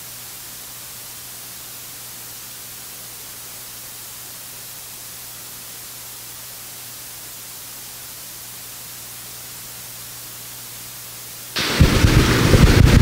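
Steady hiss of a microphone and sound system with a faint low hum. About eleven and a half seconds in, loud rustling and bumping of a handheld microphone being handled starts.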